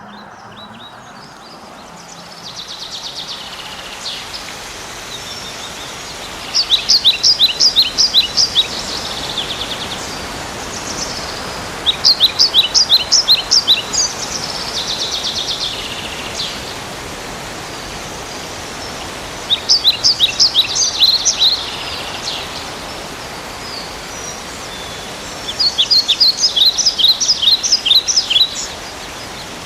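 A songbird singing a phrase of about eight to ten quick, high repeated notes, four times, roughly every six seconds. Fainter buzzy trills come between the phrases, over a steady rushing hiss.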